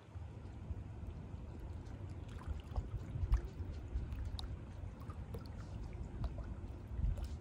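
River water lapping and gurgling against shoreline rocks, with small scattered splashes, over a low uneven rumble of wind on the microphone that sets in at the start.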